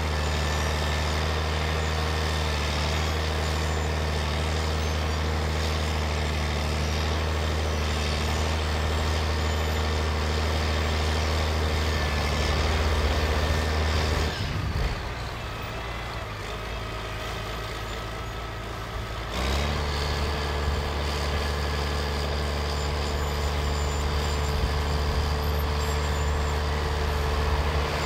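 IFA W50LA truck's four-cylinder diesel engine pulling under load as the truck climbs rough sandy ground, a steady deep drone. Past the middle it eases off for about five seconds, then comes back in abruptly.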